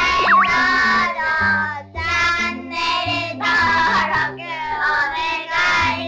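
Cheerful children's-style jingle: a sung vocal line over a bouncing bass pattern, with a springy cartoon boing effect just after the start.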